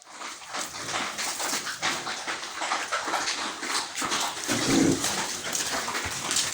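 Pigs vocalising in their pens: a dense, unbroken jumble of animal noise, with a louder low call just before five seconds in.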